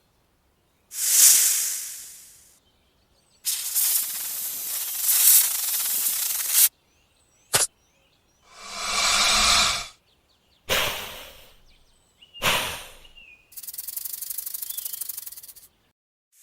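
A string of separate hisses, each a second or three long, cut apart by short silences, with a sharp click in the middle. The last hiss has a fast, rattling pulse.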